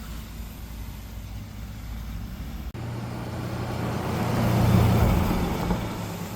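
2000 Chevrolet Blazer's 4.3-litre V6 running on a brake test drive. After an abrupt cut about three seconds in, its steady engine hum swells to its loudest near five seconds in, then fades.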